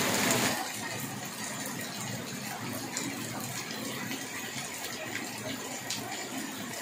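Heavy rain pouring down on a paved street: a steady hiss of rain, a little louder in the first half second, with a few scattered drop ticks.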